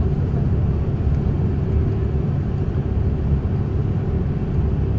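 Steady low rumble of road and engine noise heard from inside the cabin of a moving vehicle.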